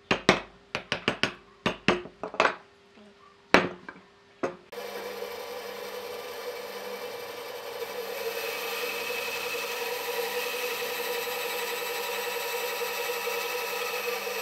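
A chisel struck with a wooden mallet into a wooden block: a quick run of sharp knocks, then two more spaced about a second apart. Then a band saw runs steadily, and from about eight seconds in its blade cuts into a thick block, louder and with more hiss.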